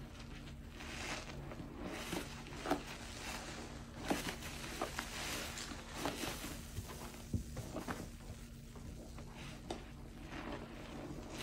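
Soapy sponge with a grid-scored face being squeezed and wrung by hand in a bowl of sudsy water, squelching, with suds crackling and water splashing and dripping in repeated swells, broken by sharp wet pops.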